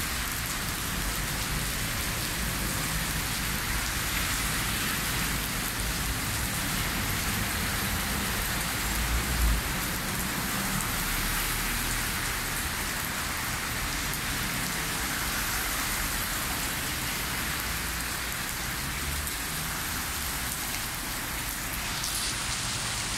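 Heavy rain pouring steadily onto the street and pavement, a dense even hiss, with cars swishing through the standing water now and then. There is one brief low thump about nine seconds in.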